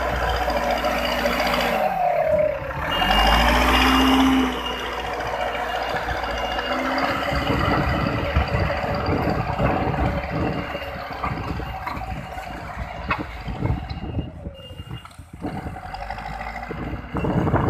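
Backhoe loader's diesel engine running under load, revving up and down about two to four seconds in, with a faint intermittent high beeping. Rough crackling noise runs through the second half.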